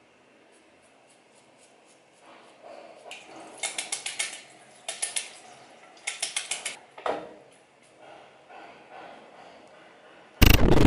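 Water splashing in a white ceramic basin, in three short clattery bursts about a second apart, with smaller splashes and drips around them. Near the end comes a sudden loud, harsh burst of noise.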